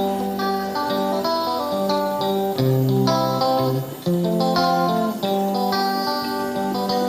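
Background music: guitar-led track with plucked and strummed chords over a bass line.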